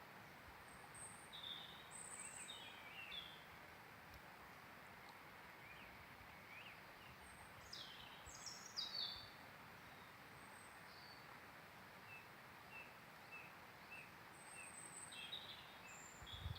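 Songbirds calling faintly over a steady hiss: scattered high chirps, a few quick falling phrases about eight seconds in, and later a run of six or so short notes about half a second apart.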